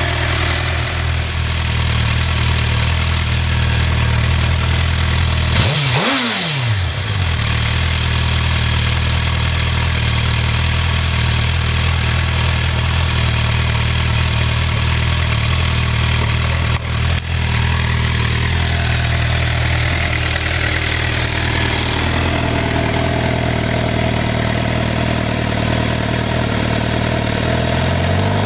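Suzuki GSX-R750's inline-four engine idling steadily through its stock exhaust.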